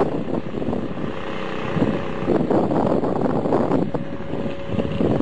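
Small engine on a homemade motorized shopping cart running steadily as the cart drives down the road.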